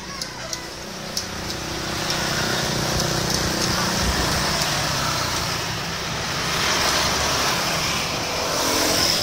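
Road traffic noise swelling and easing off twice, with a few light metal clicks from a wrench on the motorcycle's oil filler cap near the start.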